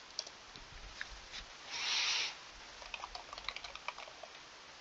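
Quiet computer keyboard typing: a few scattered keystrokes, then a quick run of key presses about three seconds in as a line of code is typed. A short soft hiss about two seconds in is the loudest sound.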